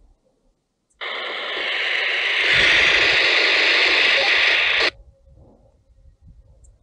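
Two-way radio receiving a burst of loud hissing static for about four seconds. It switches on abruptly about a second in, grows louder partway through and cuts off suddenly. This is an incoming transmission that comes through as unreadable noise.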